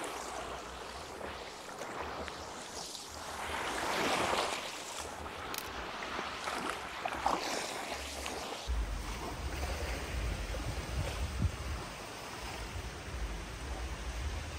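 Small waves washing up a sandy shore and draining back, swelling and fading every few seconds. From about nine seconds in a low rumble of wind buffeting the microphone joins the surf.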